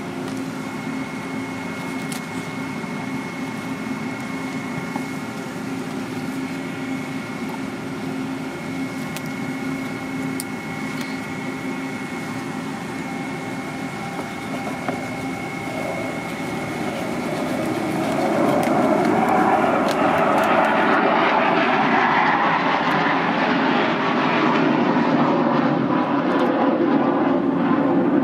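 A steady mechanical hum with a thin high whine. About two-thirds of the way in, a louder engine noise builds up and holds, drowning the whine.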